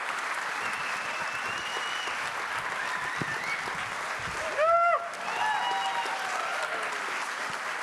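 Audience applauding steadily, with scattered whoops and cheers on top and one loud cheer about halfway through.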